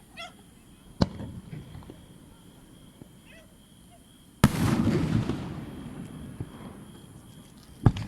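Aerial fireworks shells bursting: a sharp bang about a second in, a louder bang a little past the middle trailed by about a second of rumbling crackle, and another sharp bang near the end.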